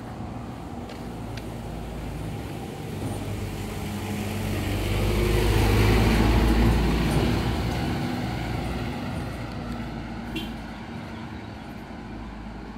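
A motor vehicle passing close by: its engine hum grows louder to a peak about six seconds in, then fades away.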